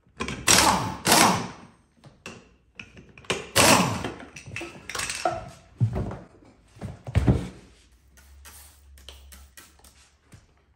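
Pneumatic impact wrench run in several short bursts, some spinning down in pitch, while the BeadBuster bead breaker clamped on an ATV wheel rim is backed off. Between and after the bursts come thuds of the tire being handled, then light clicking near the end.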